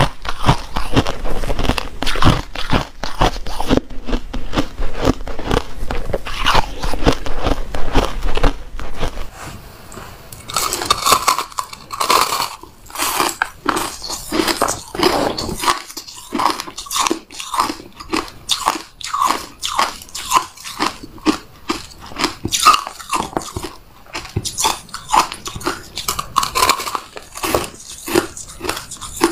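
Close-miked biting and chewing of crumbly freezer-frost ice, a dense run of crunching that, about a third of the way in, gives way to separate crisp bites and chews several times a second.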